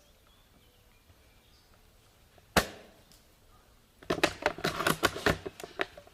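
A spring-powered airsoft sniper rifle (custom Tokyo Marui VSR-10) fires a single sharp shot about two and a half seconds in. Starting about a second and a half later comes a rapid, irregular run of sharp clicks and knocks lasting about two seconds.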